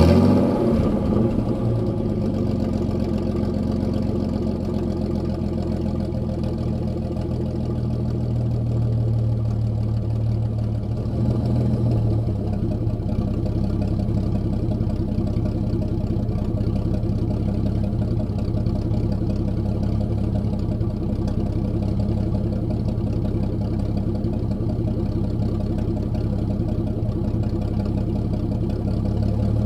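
1989 Jeep Cherokee XJ's 4.0-litre straight-six idling steadily and loud through an exhaust with the muffler cut out. It settles into idle just after starting.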